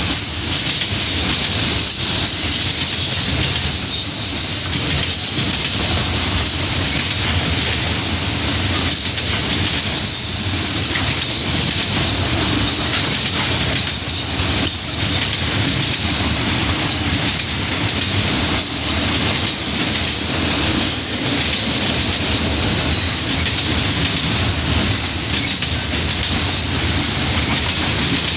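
Freight train cars rolling steadily past, wheels clicking irregularly over the rail joints, with a faint high wheel squeal.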